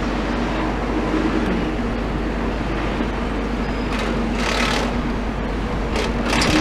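Steady engine rumble mixed with road noise, with a short hiss about four seconds in and a few sharp knocks near the end.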